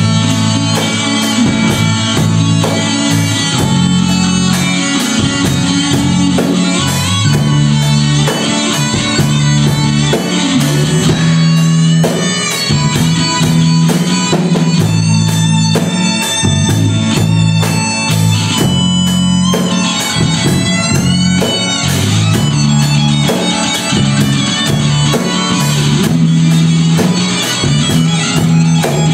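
Electric guitar solo on a Stratocaster-style guitar, a lead line of single notes with string bends and slides, played over a rock backing of drums and bass with a steady beat.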